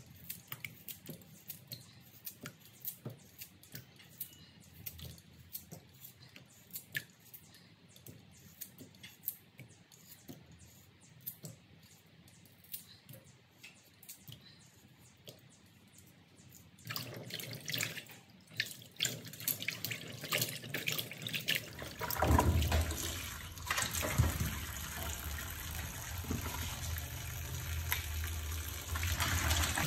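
A knife cutting a sweet potato over a basin of water, with scattered small clicks and drips as pieces drop in. A little past halfway a tap starts running into the plastic basin in a steel sink, becoming a loud steady rush of water for the last quarter.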